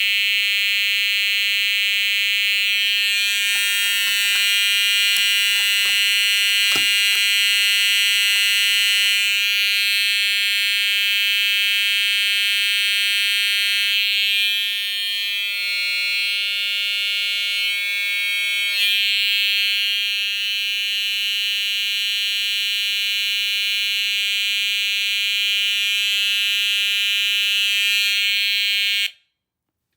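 A fire alarm sounder in alarm, sounding one steady, buzzy continuous tone that cuts off abruptly near the end as the system is reset. A few faint clicks and knocks sound over it early in the alarm.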